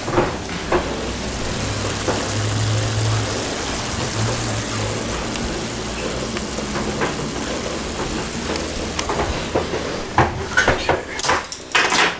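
Browned meat sizzling in a frying pan, a steady hiss. In the last couple of seconds several sharp metal clicks and knocks.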